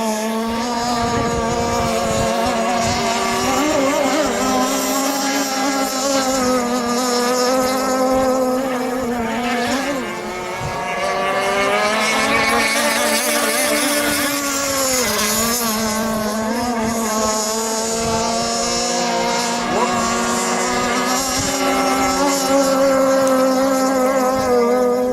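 Radio-controlled gas model boat's small engine running at high revs, a steady buzzing note whose pitch wavers slightly as the throttle changes. It dips briefly about ten seconds in and again about fifteen seconds in.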